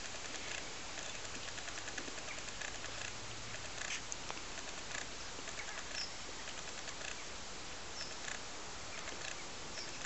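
Steady outdoor background hiss with scattered faint ticks and, twice, a brief high chirp.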